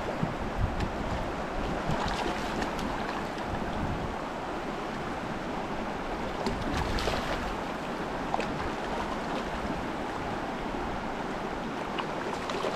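Mountain stream rushing, a steady wash of water noise.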